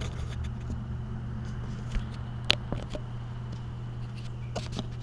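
Steady low background hum with a few light clicks and taps, the clearest about two and a half seconds in.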